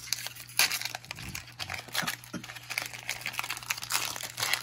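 Foil trading-card pack wrapper crinkling as fingers peel it open, in irregular bursts, louder about half a second in and again near the end.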